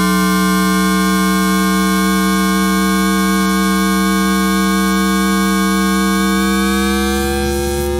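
Induction-coil pickup of a Toyodenki RG-685-A-M VVVF traction inverter on an SFM02 subway train, in synchronous 9-pulse mode: a stack of electronic tones rising slowly in pitch as the train gains speed. About seven seconds in the pattern changes as the inverter shifts to its next pulse mode.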